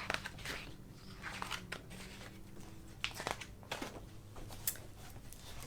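Faint paper rustling and soft clicks of a picture book being handled and its pages turned.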